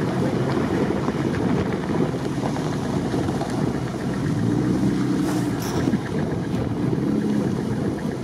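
Stock UAZ-469 off-roader's engine running as it drives across lake ice, with wind buffeting the microphone.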